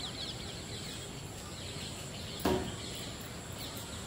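Rural outdoor ambience with small birds chirping in short, quick falling notes over a steady high thin insect-like tone. About halfway through comes one brief, louder sound.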